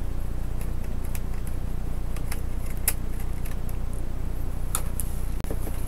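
Small screwdriver ticking and clicking against the tiny screws of an opened laptop while the screws are undone: scattered light ticks, with a sharper click about three seconds in, over a steady low hum.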